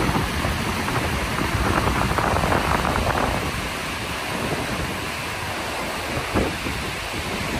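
River whitewater rushing over a rocky falls and rapids: a loud, steady roar of water, a little stronger for a second or so near the middle, with a short bump about six seconds in.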